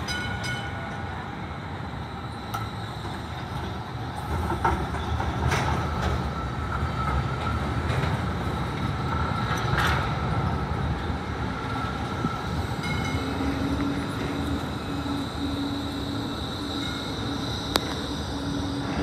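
Melbourne B-class tram coming into a stop close by: steel wheels rumbling on the track, with a few sharp clicks and a thin high whine loudest about halfway through. From about two-thirds in a steady low hum joins it as a second tram, an E2-class, comes in.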